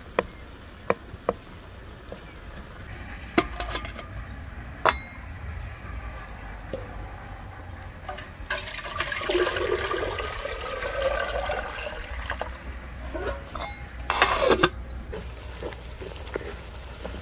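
Water poured from an enamel kettle into a cooking pan, a steady splashing pour of about four seconds starting about halfway through. A few sharp knocks of utensils on the pans come before it.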